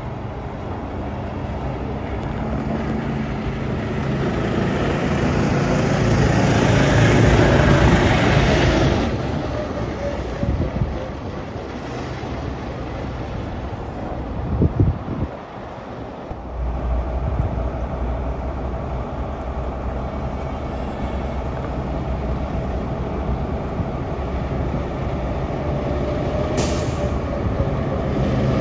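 The small engine of a Grave Digger mini monster truck running as it drives around, growing louder toward the middle, then dropping back to a steady low run. A brief sharp hiss comes near the end.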